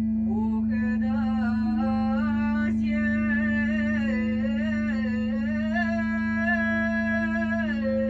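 A bathroom water pipe drones one unbroken steady note over a low rumble. A woman sings a wordless melody along with it, sliding between notes and holding some of them.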